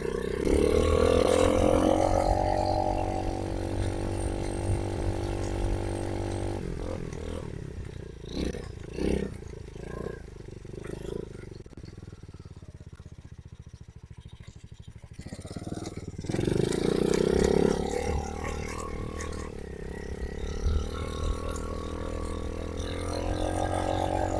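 Honda CRF125 dirt bike's single-cylinder four-stroke engine running after a fresh oil change. It revs up at the start and holds for several seconds, drops back to a low idle, then revs up again about two-thirds of the way in and settles into steady running.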